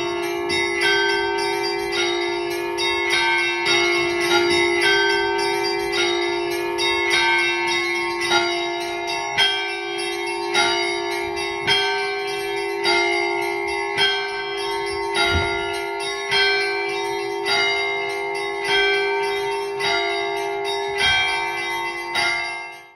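Orthodox church bells rung together: a low bell rings on continuously while smaller bells are struck in quick patterns, with a heavier stroke about once every second and a bit. The sound cuts off sharply near the end.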